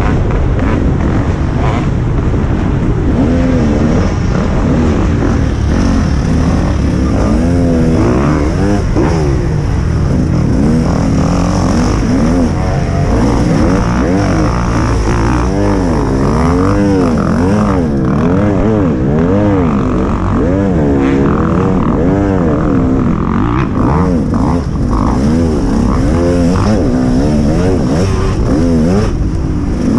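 Motocross bike's engine revving up and down over and over as it is raced around a dirt track, its pitch rising and falling every second or two, over a steady low rumble.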